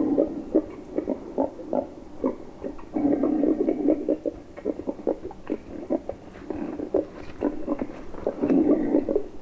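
Wild boar sounds: a rapid, irregular string of low grunts and short clicks, with louder clusters about three seconds in and again near the end.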